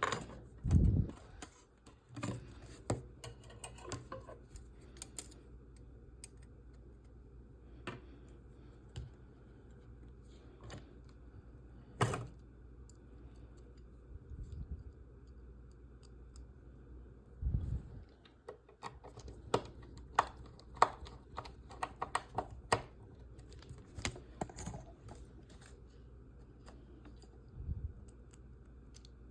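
Small, irregular clicks and taps of a model kit's parts and tiny screws being handled and fitted with a small screwdriver, with quick runs of clicks in places and a few soft low thuds as pieces are set down.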